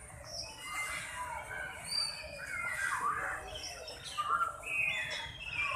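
Several small birds chirping and twittering, many short overlapping calls and quick sweeping notes.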